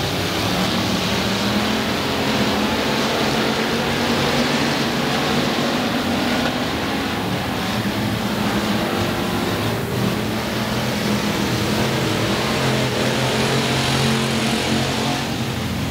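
Several dirt-track stock cars racing together around the oval, their engines running hard in a steady, overlapping drone that wavers slightly in pitch as the pack circles.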